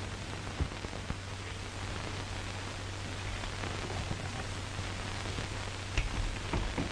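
Steady hiss and low hum of an old optical film soundtrack, with a few faint clicks scattered through it.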